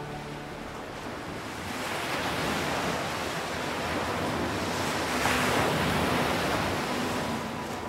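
Ocean surf: waves breaking and washing up on a beach, swelling to a peak about five seconds in and then easing off.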